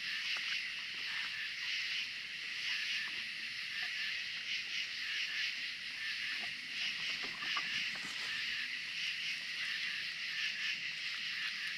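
Raccoons eating peanuts off a wooden table, with scattered soft crunches and clicks of chewing and paws on the boards. A steady, high, faintly fluttering chorus of night insects runs under them and is the loudest sound.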